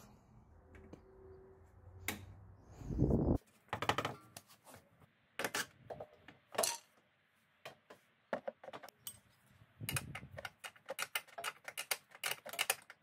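Spanners clicking and clinking on metal as the level sensor's small nut is undone, with a dull low rumble about three seconds in and a quick run of clicks near the end.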